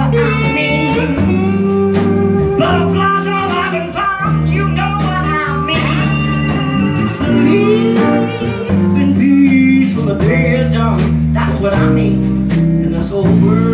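Live band playing a blues number: electric guitars, bass and drum kit, with a woman singing over them.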